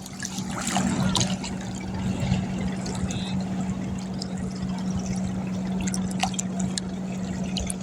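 Water splashing and trickling, with scattered small splashes over a steady low hum from a boat motor.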